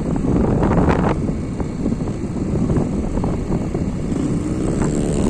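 A vehicle's engine running steadily while moving, with wind buffeting the microphone.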